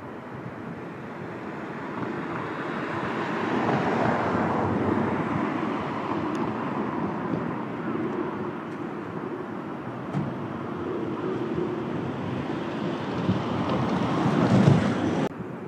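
Vehicles passing: a rushing traffic noise that swells and fades, with wind on the microphone. The sound swells loudest about four seconds in and again near the end, then cuts off suddenly.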